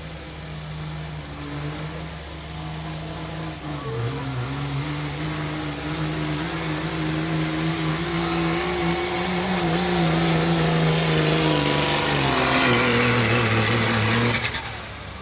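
Dodge Ram's Cummins diesel under full throttle pulling a sled, its steady note slowly rising and getting louder as the pull goes on. Near the end the engine cuts off abruptly as the driver lets off, and a high whistle falls away.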